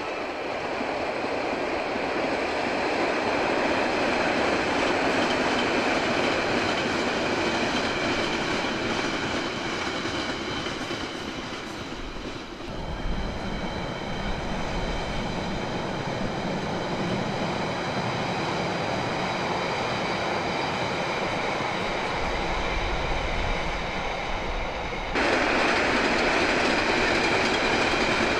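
London Underground train running past close by: a steady rush of wheels on rails with a thin, high, steady whine over it. The sound changes abruptly about halfway through and gets louder and brighter near the end.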